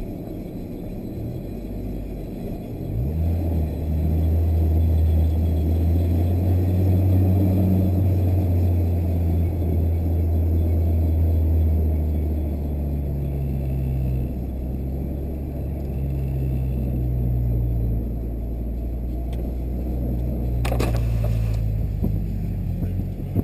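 Honda Civic Type R's four-cylinder engine running at low revs, heard from inside the cabin; a low, steady drone that picks up about three seconds in and shifts pitch a little midway. A brief hiss near the end.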